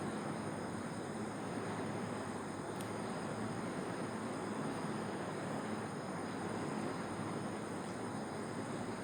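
Steady background noise: an even hiss with a few faint, high steady tones in it, and no distinct events.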